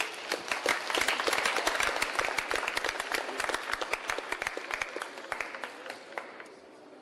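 Audience applauding, breaking out suddenly and dying away over about six seconds.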